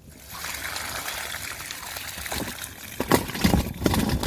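Water being poured out of a container in a steady trickle, then several knocks and thumps about three seconds in.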